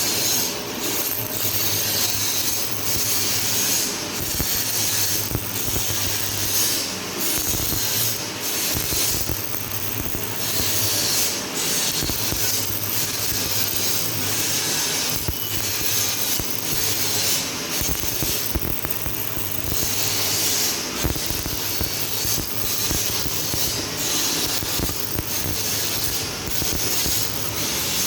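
MIG/MAG gas-shielded welding: a steady crackle and hiss from the arc over a low electrical hum.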